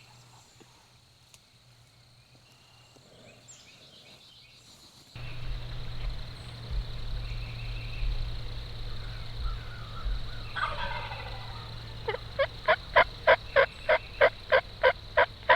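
Eastern wild turkey calling: one gobble about two-thirds through, then a loud run of about a dozen evenly spaced notes, three or four a second, near the end. A low rumble sets in suddenly about a third of the way through.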